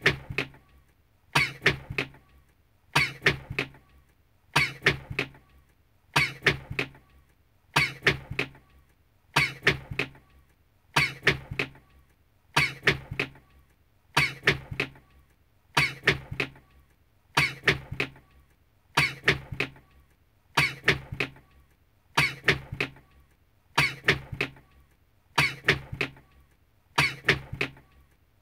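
A man's sneeze, one short recording looped again and again, about once every second and a half.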